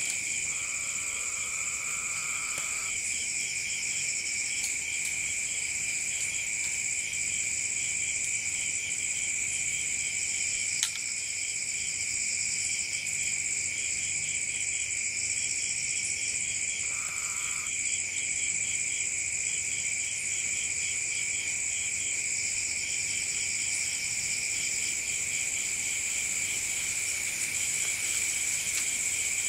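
Night insect chorus: several insects trilling steadily at high pitch, some in a continuous ring and others pulsing rapidly. A shorter, lower buzzing call sounds near the start and again about halfway through, and there is a single click a little past a third of the way in.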